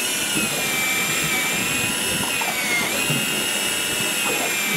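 Electric fishing reel's motor winding in line against a hooked lingcod: a steady high whine that sags in pitch about three seconds in as the fish pulls against it.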